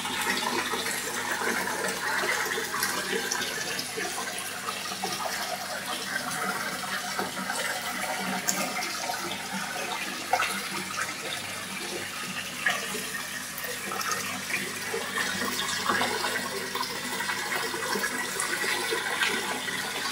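Pond water churning and bubbling around an underwater camera as a dense crowd of koi jostles at the surface, with scattered small clicks and splashes.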